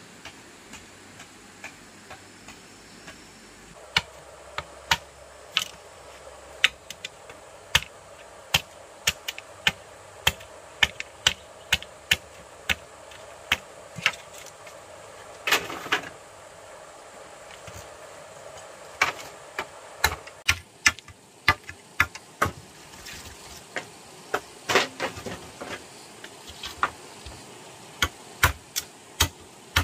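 A series of sharp knocks or taps, irregularly spaced at roughly one to two a second, over a faint steady hiss, with two longer scraping or rustling bursts in between.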